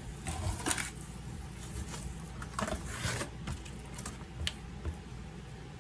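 Hands rubbing and massaging seasoning into raw ribs in a disposable aluminium foil pan: a string of irregular soft squishes and light taps.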